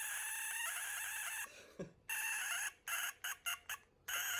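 A small electric motorcycle horn sounding with a thin, reedy tone that has no low end, like "a dying chicken": a long blast, a shorter one, about five quick toots, then another long blast starting about a second before the end.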